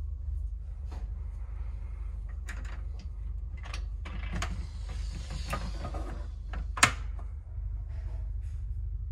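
Roll-up screen blind at a capsule berth's entrance being pulled along its track: a rustling slide with small clicks, then one sharp clack just before 7 s. A steady low hum of the ship runs underneath.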